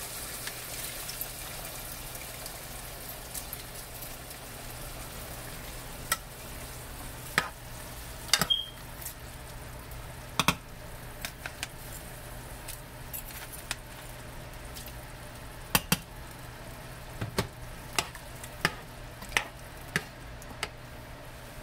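Pork stew in guajillo chile sauce cooking in a pot with a steady hiss, not yet at the boil. From about six seconds in, a spoon stirring it clicks sharply and irregularly against the pot's sides.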